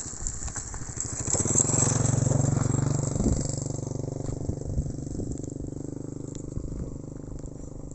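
A small engine running with a low, pulsing note; it grows louder about a second and a half in and then slowly fades.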